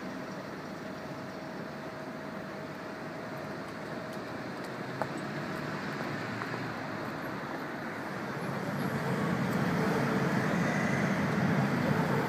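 Steady city road traffic, vehicles going by, with the rumble growing louder over the last few seconds as heavier traffic passes. A single sharp click about five seconds in.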